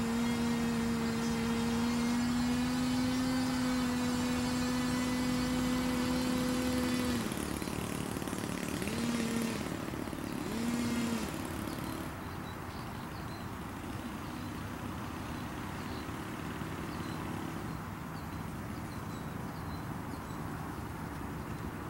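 A motor vehicle engine running at a steady, even pitch, easing off about seven seconds in. It is then revved briefly twice, about a second and a half apart, and fades to a faint hum.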